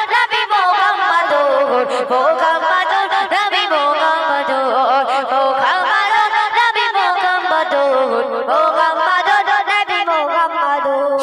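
A Bengali Islamic gojol sung into a microphone: one high voice holding a continuous, ornamented melodic line with wavering, sliding pitch and hardly a break.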